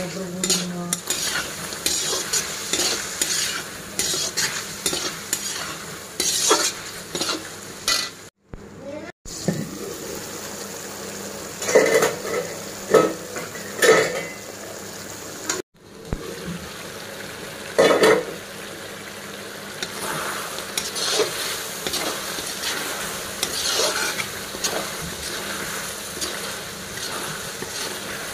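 A metal spatula stirring and scraping chicken pieces around a kadai as they sizzle and fry in oil and masala. There are a few louder clanks of the spatula against the pan midway, and the sound breaks off briefly twice.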